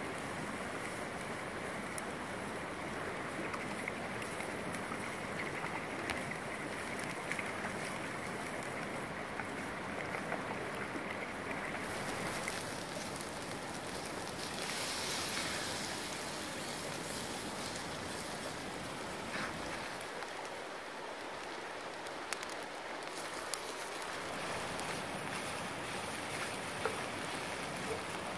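A river rushing steadily over rocks, mixed with food sizzling in a pan over a campfire. About fifteen seconds in, a brighter hiss rises as beaten eggs are poured into the hot pan.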